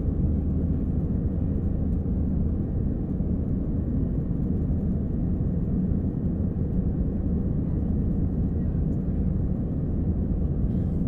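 Airplane engine noise: a steady, unchanging low rumble.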